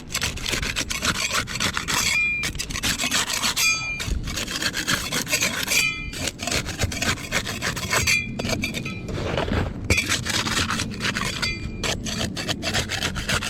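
Roof shingle being worked loose: a metal tool scrapes and rubs under the shingle in rough strokes, with a short metallic ring about five times.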